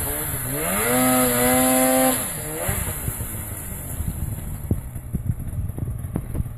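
Polaris snowmobile engine revving up to a held high pitch, then dropping back about two seconds in. After that the engine runs quieter under scattered crunches of footsteps in snow.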